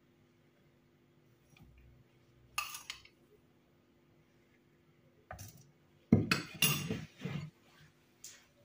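A spoon clinking and scraping against a glass bowl and the plastic chopper bowl while a white ingredient is spooned in. There is a short clatter about two and a half seconds in, and a louder run of clinks and scrapes from about six to seven and a half seconds.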